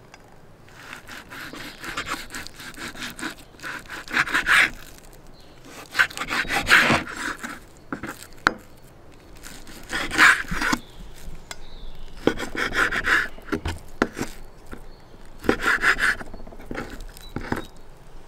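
Kitchen knife cutting beef into cubes on a cutting board: a back-and-forth sawing stroke through the meat every two to three seconds, with sharp knocks of the blade on the board between strokes.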